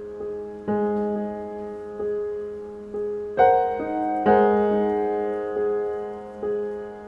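Background piano music: a slow, gentle piece of notes and chords struck about once a second and left to ring out, with a louder chord about halfway through.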